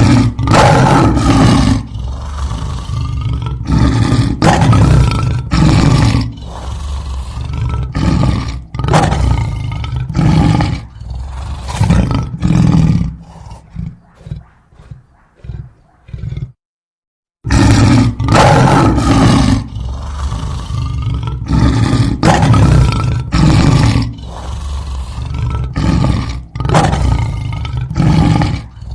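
A large animal roaring in a series of loud calls every second or two. The calls grow shorter and fainter, break off for a moment, then the roaring starts again.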